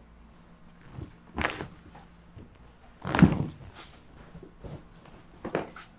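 A few short knocks and dull thumps from handling a patient on a chiropractic treatment table, the loudest about three seconds in.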